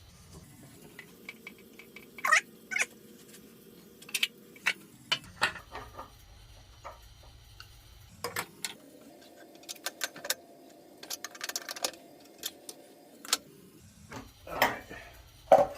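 Hand tools and metal fittings clinking and knocking while a water heater connection is fitted and tightened, a string of sharp clicks. A steady low hum sounds underneath twice, a few seconds each time.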